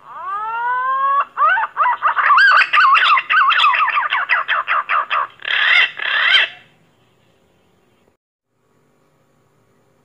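Pink-necked green pigeon (punai gading) calling. It opens with a rising whistle of about a second, then a fast run of warbling whistled notes, and ends in two rougher, gurgling notes about six seconds in.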